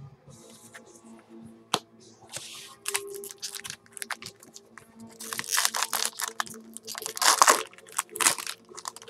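Foil wrapper of a baseball card pack crinkling and tearing as it is pulled open by hand: a run of crackling rustles that grows loudest over the second half. Faint background music runs underneath.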